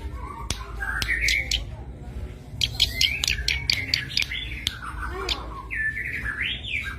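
Cici padi (zitting cisticola) singing. It gives rapid runs of sharp, clicking notes mixed with short chirps, in clusters about a second in and again from about two and a half to five seconds, then a few quick up-and-down warbled notes near the end.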